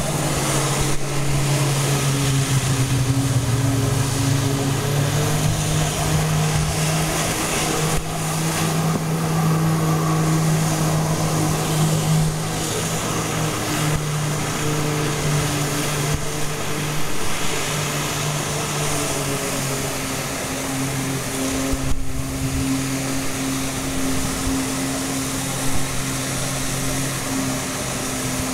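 Engine of a water jetpack's floating pump unit running steadily, its note shifting in pitch a few times as the throttle changes, over a constant rushing hiss of water jets spraying.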